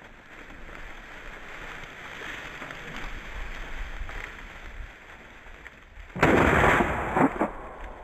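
A single loud shotgun shot about six seconds in, ringing on for about a second. Before it, a steady low wind noise.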